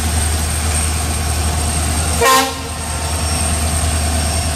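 Diesel locomotive drawing a passenger train past, its engine rumbling steadily under the hiss of heavy rain, with one short horn blast about two seconds in.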